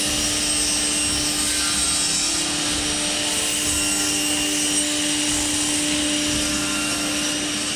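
SCM minimax lab 300p combination woodworking machine running steadily: an even noise with a steady humming tone that cuts off near the end.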